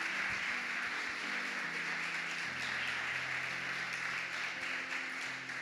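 Congregation applauding, a steady even clapping. Soft sustained music chords sit underneath, changing about two and a half seconds in.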